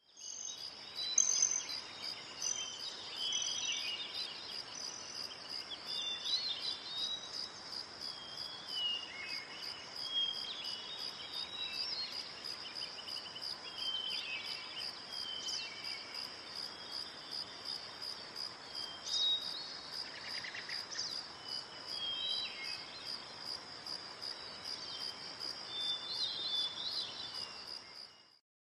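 A steady, high, finely pulsing insect trill like a cricket's, with short bird chirps scattered over it.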